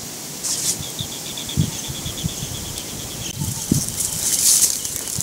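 Footsteps brushing and crunching through dry grass and scrub, in bursts of rustling with soft low thuds. Behind them runs a rapid trill of high chirping notes, about a dozen a second.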